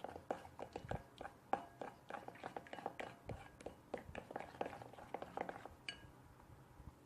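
A mixing utensil stirring white PVA glue and water in a bowl, with quick irregular clicks and taps against the bowl, several a second, that die away about six seconds in.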